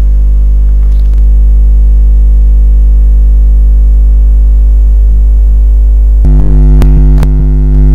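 Loud, steady electrical mains hum on the recording, turning buzzier about six seconds in, with two clicks soon after.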